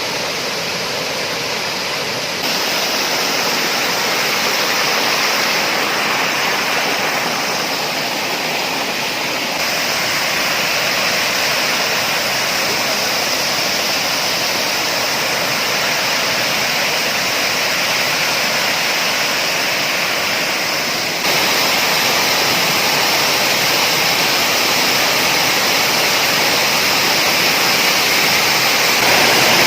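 Waterfall rushing steadily, a dense, even roar of falling water. Its loudness steps up suddenly about two seconds in and again about two-thirds of the way through.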